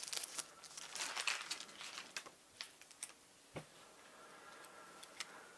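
Light clicking and crinkling of small plastic parts and packaging being handled. The clicks come thick for the first three seconds, then thin to a few scattered ones.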